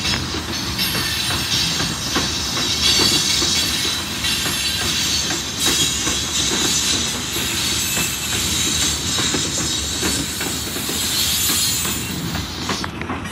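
Freight train of coal gondola cars rolling past: a steady rumble of steel wheels on the rails, with many clicks and clunks as the wheels cross rail joints and a high-pitched edge from the wheels on the rail.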